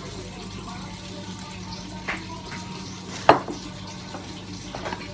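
A few short clinks of plates and dishes on a table, the loudest about three seconds in, over a steady low hum.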